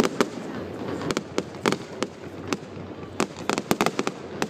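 Aerial fireworks bursting: an irregular series of sharp bangs, two or three a second, with a quicker run of reports about three seconds in.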